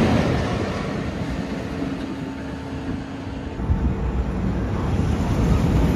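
Steel roller coaster train running along its track: the rumble fades over the first few seconds, then a low rumble builds again from a little past halfway.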